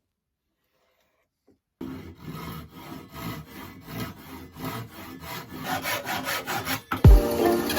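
Hand saw cutting through oak in quick, even back-and-forth strokes that grow louder, starting after about two seconds of silence. Near the end comes a heavy low thump, and music comes in.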